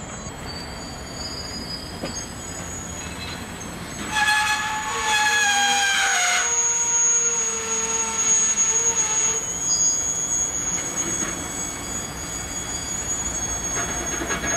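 Steel wheels of a slow-moving train squealing against the rails. About four seconds in a loud squeal starts and slides down in pitch for a couple of seconds, then gives way to a thin, steady high squeal.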